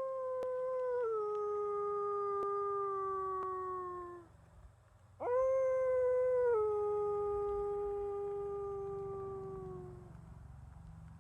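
Wolf howling: two long, smooth howls, each stepping down in pitch about a second in and then sliding slowly lower as it fades, the second opening with a quick upward scoop.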